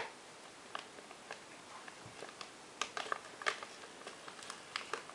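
Faint, irregular small clicks and taps, sparse at first and coming more often in the second half.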